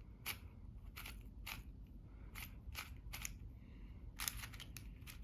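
MGC 4x4 magnetic speed cube being turned by hand: a run of short, sharp plastic clicks as the layers snap round, coming irregularly, sometimes in quick pairs or clusters.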